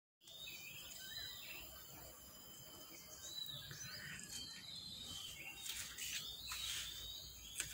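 Faint outdoor ambience of birds chirping, with short scattered calls, over a steady high insect drone.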